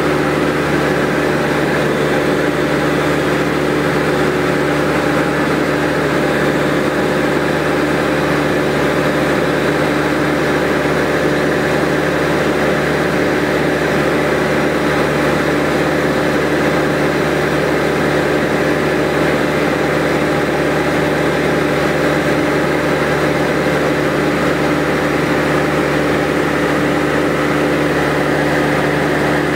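Steady drone of a light high-wing aircraft's engine and propeller in level flight, heard from inside the cabin. It stays even in pitch and loudness throughout.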